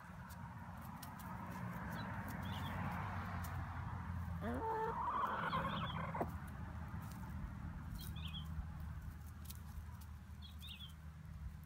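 Hens clucking and murmuring softly while foraging, with one louder rising call about four and a half seconds in. Short high chirps come every two or three seconds.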